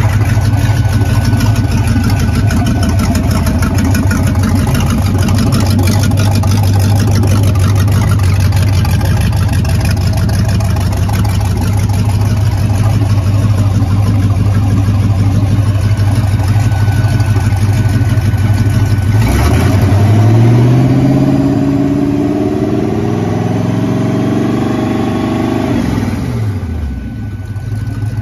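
Volvo Penta 5.7 Gi marine engine, a 350 Vortec V8, idling steadily. About two-thirds of the way through it is revved up quickly and held at a higher speed for several seconds, then drops back to idle near the end.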